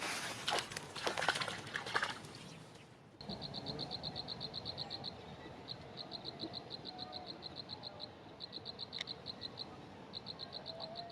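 About three seconds of clicks and rustling, then a sudden switch to a small animal's high, rapid chirping trill. The trill repeats in runs of about two seconds at roughly ten pulses a second.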